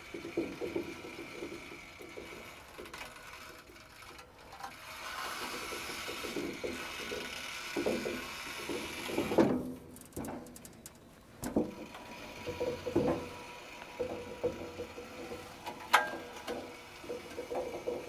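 Woodland Mills HM122 sawmill carriage's trolley wheels rolling along the steel rail through heaped sawdust, with irregular knocks, clanks and scraping as the wire-cable wipers push the sawdust off the track.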